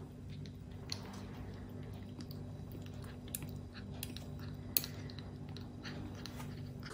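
Kitten suckling from a feeding bottle's nipple, making irregular small wet clicks and smacks, one sharper click a little after halfway, over a steady low hum.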